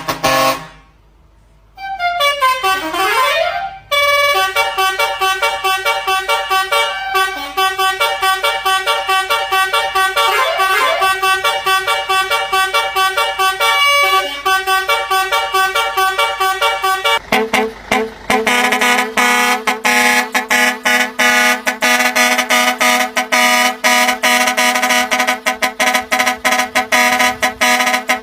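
Truck's musical horn playing a tune as a run of steady pitched notes, with a note that slides down and back up about three seconds in. From about seventeen seconds in the notes pulse rapidly and evenly.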